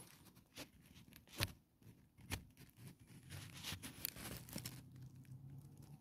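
Faint rustling and crackling of dry grass nest material, with scattered small clicks and two sharper ones in the first half.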